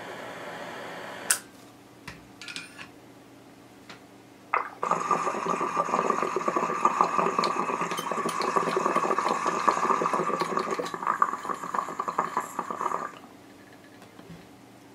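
A butane torch hissing, cut off with a click about a second in. Then, about five seconds in, water bubbling loudly through a glass dab rig for about eight seconds as the dab is inhaled.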